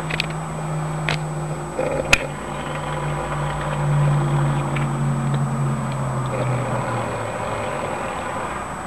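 A person snoring: a low, drawn-out drone that slowly falls in pitch and fades out about three-quarters of the way through, with a few sharp clicks in the first couple of seconds.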